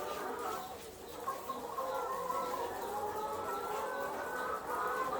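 A flock of commercial laying hens clucking and calling, many overlapping drawn-out calls at once.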